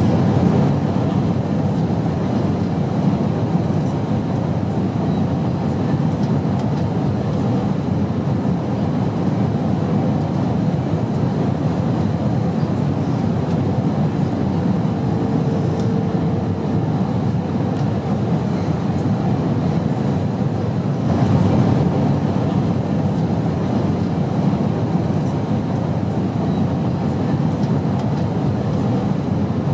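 Steady airplane noise: an even low drone with no breaks, swelling slightly a little after the middle.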